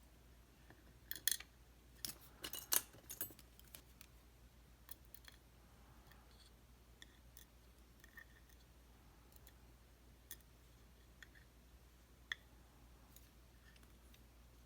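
Faint, sharp metallic clicks and taps from handling the small pins and parts of a dimple lock cylinder with tools while gutting it: a quick cluster of clicks a second or two in, then scattered single ticks.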